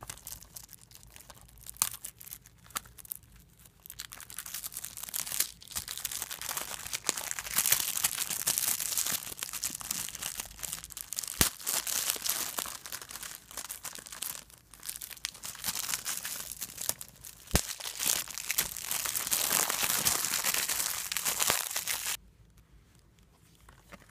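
Plastic shrink-wrap being torn and peeled off a Blu-ray case by hand: a long run of crinkling and tearing with a few sharp clicks. It starts sparsely, grows dense after a few seconds and stops abruptly near the end.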